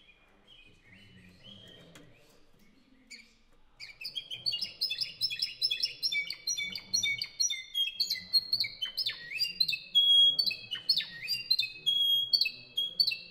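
Canario Cantor Español (Spanish song canary) singing. Soft twittering for the first few seconds, then about four seconds in a loud song of rapid runs of repeated notes. Later come steep downward-sweeping notes and a few held whistled tones.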